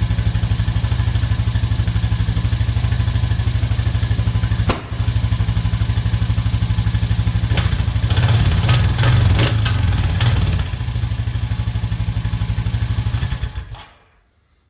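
Honda Foreman 500 ATV's single-cylinder engine idling steadily, now starting after its no-crank fault was traced. It runs louder with some clatter for a couple of seconds past the middle, then is shut off and dies away near the end.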